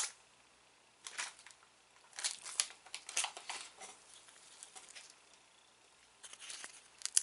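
Plastic snack wrapper of a soy sauce rice cracker crinkling in the hands, in several short scratchy bursts.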